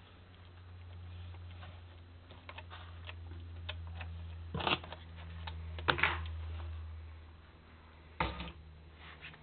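Red bearded dragons snapping up and crunching morio worms: scattered light ticks and taps, with louder snaps about halfway through and again near the end, over a low steady hum.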